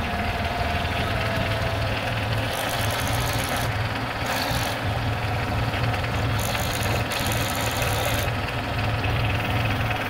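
Kubota compact tractor's diesel engine idling steadily, with a low, even hum.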